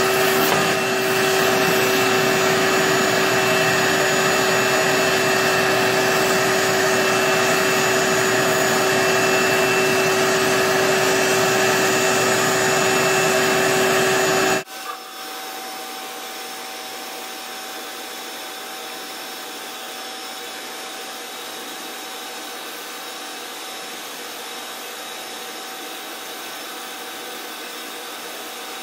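Shop vac running steadily through a dust-collection hose, a loud whooshing rush with a steady whine. About halfway through the sound cuts off abruptly to a quieter, thinner steady whir.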